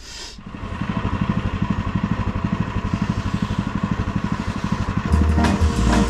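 Plate compactor's small petrol engine running with a fast, even pulsing beat. Music starts near the end.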